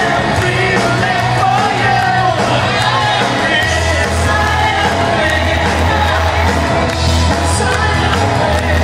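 Live worship music with singing. A deep bass line comes in about three and a half seconds in.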